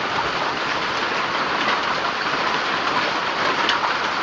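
Hailstorm: hailstones pelting down in a dense, steady clatter of many small impacts.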